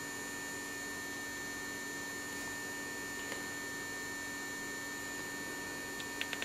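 Steady electrical hum with a faint high whine. Near the end come a few quick soft clicks from buttons being pressed on a handheld DC voltage source.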